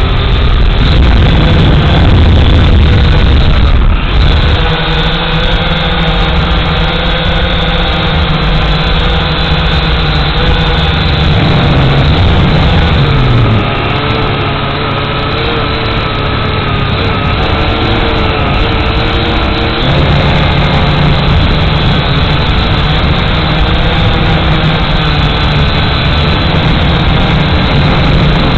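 Quadcopter drone's electric motors and propellers, heard close up from the drone's own camera: a loud steady buzz whose pitch shifts as the throttle changes, dipping and gliding about halfway through and stepping up about two-thirds in.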